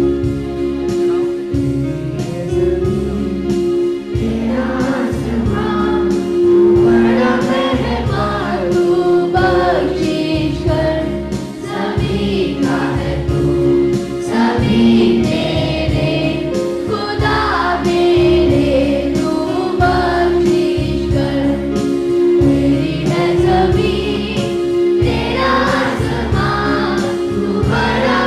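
A Hindi prayer sung in chorus over sustained instrumental notes. The voices come in about four seconds in, after a short instrumental opening.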